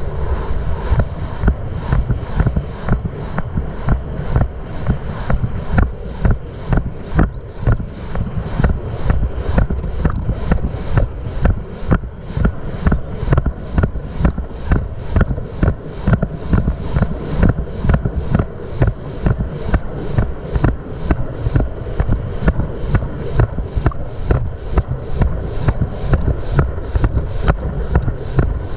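A racehorse galloping on a dirt track, heard from a camera riding on the horse: hoofbeats and stride jolts come about twice a second under heavy wind noise on the microphone.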